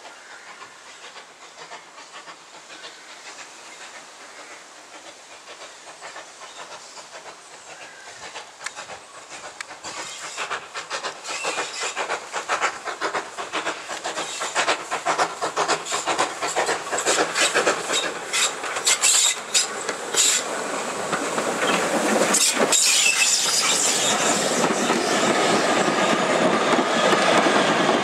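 LBSCR E4 0-6-2T steam tank locomotive and its carriages coasting past, the engine working without steam: a hiss of steam and the wheels clicking over rail joints grow louder as it approaches. Over the last few seconds the carriages roll by in a steady, close rolling noise.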